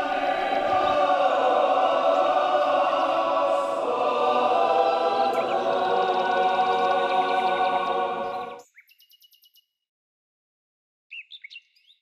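Choir singing a long held chord, steady and full, that cuts off suddenly about two-thirds of the way through. A few short bird chirps follow near the end.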